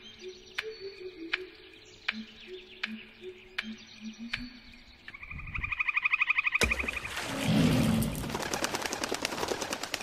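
Soft background music of low notes with scattered sharp clicks. About five seconds in comes a bird's rapid trilled call, followed by a loud, fast fluttering rustle.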